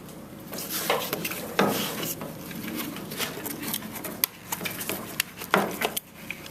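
Plastic clicks, scrapes and rattles of a tail light bulb socket being twisted loose from its housing with both hands, starting about half a second in and going on irregularly.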